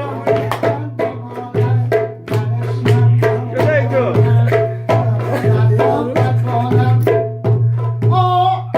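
Music: a fast run of drum strokes over a steady low bass note, with a melody line bending above it.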